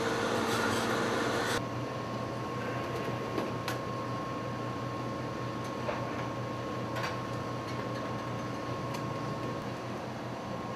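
Coffee vending machine running as it dispenses, a loud steady hum that cuts off abruptly about a second and a half in. A quieter machine hum then carries on, with a few light clicks as the cup compartment is reached into.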